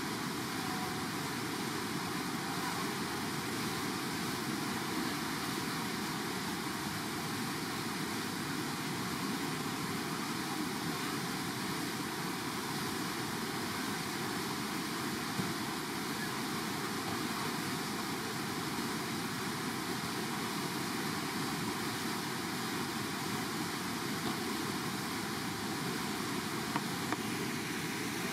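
Steady rushing noise of the Eisbach standing river wave, fast water breaking into churning whitewater.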